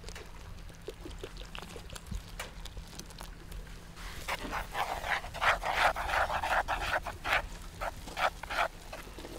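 Water trickling from a bottle onto flour in a wooden bowl. From about four seconds in, long chopsticks stir it into tempura batter, with quick, rapid scraping and clacking strokes against the wooden bowl.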